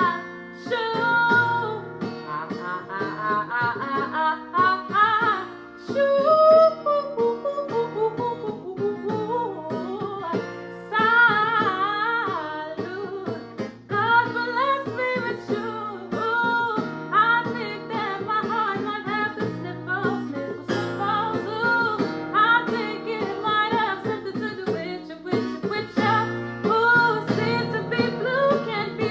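R&B/soul song performed live: a singer's voice gliding through long, bending vocal lines over guitar accompaniment.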